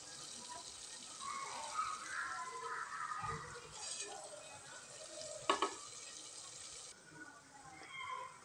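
Red stew sauce sizzling in a saucepan on the stove, a steady hiss that cuts off abruptly near the end. About five and a half seconds in there is a sharp knock.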